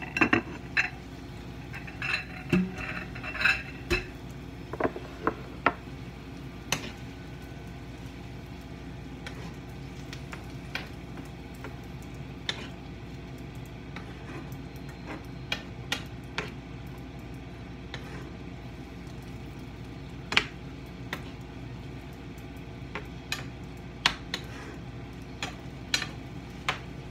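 A spoon knocking carrots and chili pepper out of a glass bowl into a frying pan, with ringing glass clinks in the first four seconds, then the spoon stirring in the pan: scattered clicks and scrapes every second or two over a steady background hiss.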